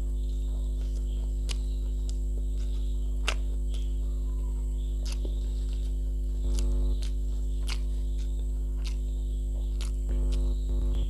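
Steady low electrical mains hum, with scattered faint wet clicks and smacks of a person chewing food with an open mouth.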